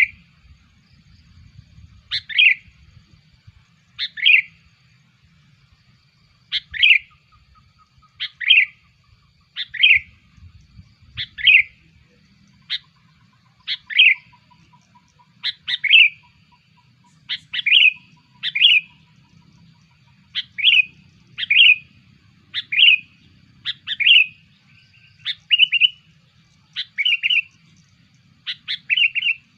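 Sooty-headed bulbul (kutilang) giving its lure call: short, sharp, downward-sliding notes repeated about every one to two seconds, coming in quick pairs in the second half.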